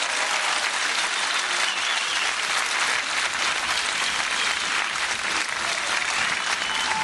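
Steady rushing hiss of water pouring in a continuous curtain from the umbrella-shaped fountain column onto the courtyard below.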